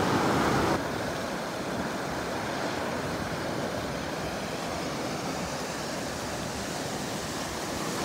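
Fast river rushing over boulders in whitewater rapids, a steady rushing of water, louder for the first second and a little softer after that.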